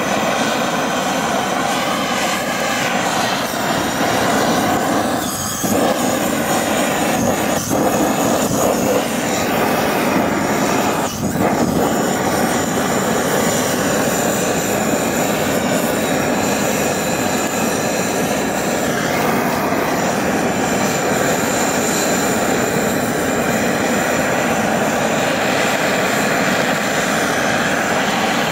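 Gas blowtorch running with a steady hiss as its flame singes the hair off raw cow legs.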